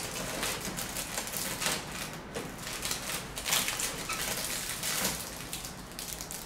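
Cardboard advent calendar door being worked open by hand and a small item in a crinkly plastic wrapper pulled out: an irregular run of rustling, crinkling and small clicks.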